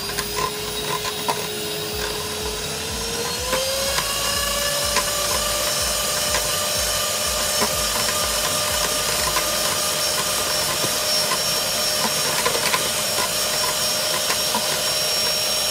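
Electric hand mixer running, its beaters whipping egg whites and lemon juice into meringue. The motor whine rises in pitch about three seconds in, then holds steady over the hiss of the beaters, with light ticks of the beaters against the plastic tub.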